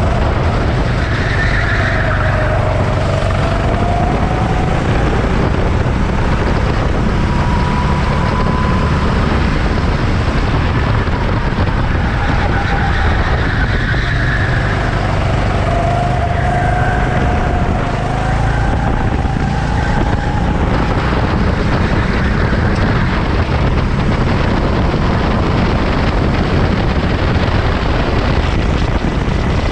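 Racing motorcycle engines running over a loud, steady rumble, their pitch rising and falling slowly over several seconds.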